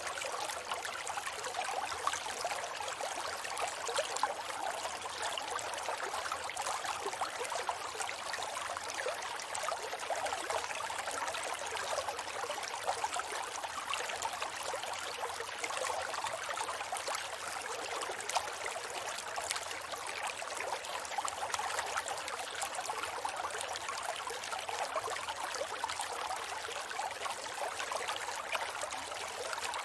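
River flowing steadily: an even rush of water with many small splashes and trickles.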